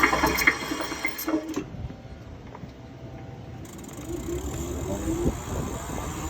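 A vehicle rolling, then a short, slightly rising groan from its front brake about four seconds in, the brake noise being diagnosed.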